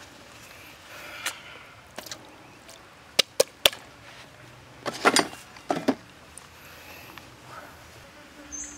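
A few sharp knocks and clicks: three in quick succession about three seconds in, then two short clusters around five and six seconds. A short high chirp comes near the end.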